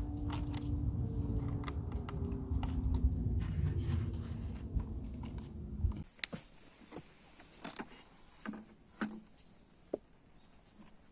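Honeybees buzzing in a steady hum for about six seconds, then an abrupt cut to a quiet stretch with scattered light clicks and taps.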